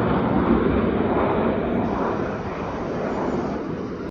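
Jet airliner's engines at takeoff thrust, a broad steady rumble that slowly fades as the aircraft climbs away.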